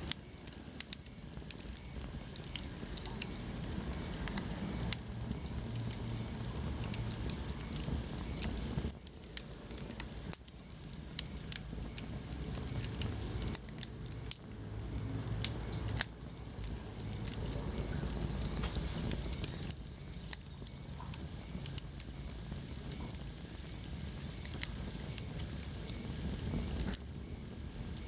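Wood fire burning in a fireplace: a steady low rumble and hiss with frequent, irregular sharp crackles and pops.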